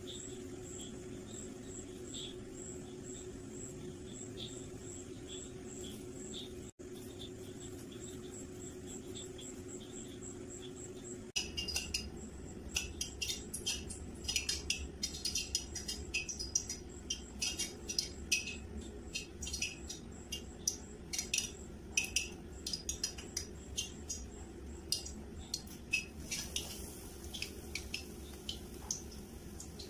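A faint steady hum with faint, regular high chirps. About eleven seconds in, hot coconut oil starts crackling and popping with many sharp spits as an egg-and-breadcrumb-coated chicken cutlet fries in the pan.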